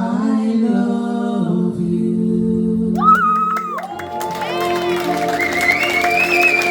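A live vocal duet with band holds its final notes and chords as the song ends. Audience applause starts about halfway through and builds under the last held note.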